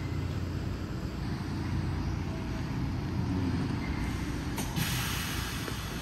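PATH subway train running with a steady low rumble as it moves through the station. A sudden hiss cuts in near the end and lasts about a second.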